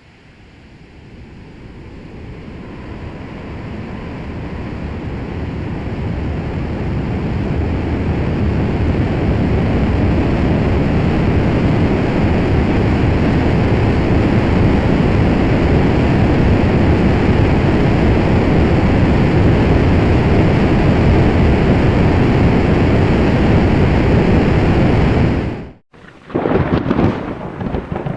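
Thunderstorm sound effect: a loud, steady rumbling rush of rain and thunder fades in over about eight seconds and holds. It cuts off abruptly near the end, and another, more uneven stretch of storm noise begins.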